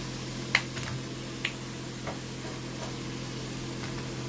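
Steady low electrical hum with a few light clicks and taps, the sharpest about half a second in.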